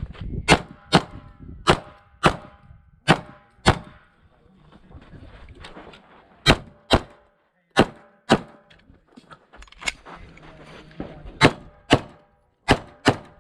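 Sig Sauer P320 XFive pistol with a ported barrel firing rapid pairs of shots during a timed stage, about fourteen shots in all. The pairs are about half a second apart, with longer pauses between groups. A faint ringing tone trails some of the early shots.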